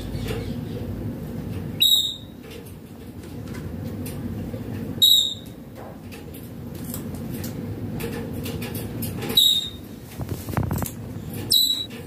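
Indian ringneck parakeet giving four short, sharp, high-pitched calls, a few seconds apart, over a steady low background hum.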